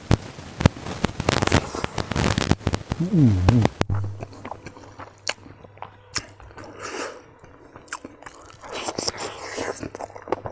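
Close-up sounds of eating by hand: fingers squishing and mixing rice with smoked pork curry, and wet chewing and smacking, crackly and dense at first. About four seconds in it drops abruptly to quieter, sparser clicks and squishes over a low steady hum.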